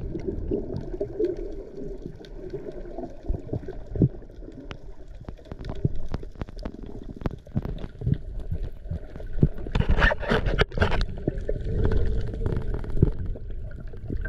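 Muffled underwater sound through an action camera's waterproof housing: a low watery rumble with many small clicks and knocks, and louder bursts of gurgling about ten seconds in.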